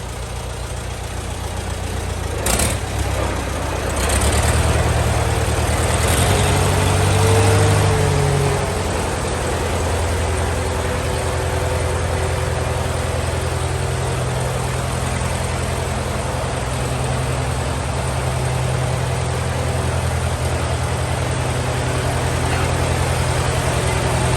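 Tractor engine running at a steady idle, louder for a few seconds with a shift in pitch about four to eight seconds in before settling again. Two sharp clicks sound about two and a half and four seconds in.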